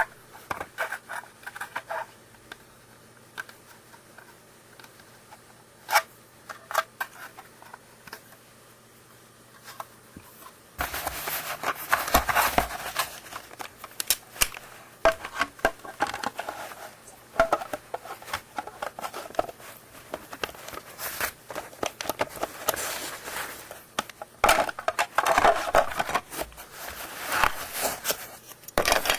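Small plastic parts being handled and worked by hand: scattered sharp clicks at first, then from about eleven seconds in a busier run of rustling, scraping and clicking.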